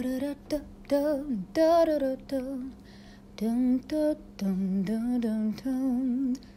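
A woman singing a slow melody in short phrases, with vibrato on the held notes and brief pauses between phrases.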